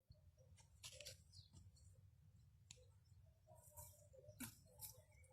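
Near silence, with faint scattered clicks and short scrapes.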